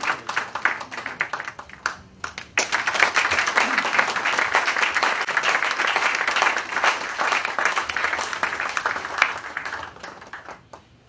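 Audience applauding: scattered clapping, a brief drop about two seconds in, then steady applause that fades out near the end.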